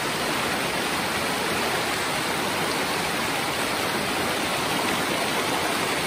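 River water rushing over shallow, rocky riffles: a steady, even rush that does not change.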